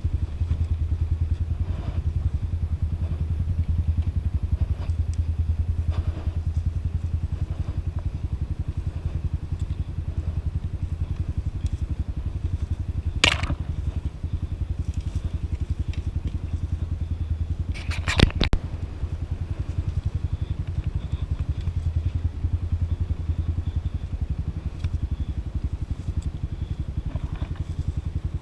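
Motorcycle engine running steadily at low revs, with a sharp knock about 13 seconds in and a short clatter of knocks about 18 seconds in.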